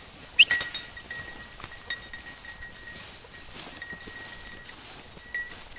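Bird dog's bell collar jingling irregularly as the dog runs, with the loudest cluster of rings about half a second in.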